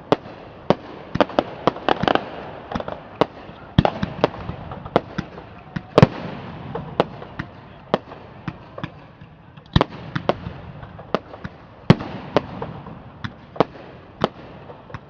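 Aerial fireworks bursting overhead: a run of sharp bangs at irregular intervals, some in quick clusters. The heaviest reports come about six, ten and twelve seconds in.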